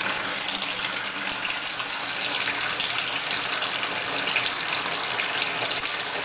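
Kitchen tap running steadily into a stainless steel sink, filling it with water.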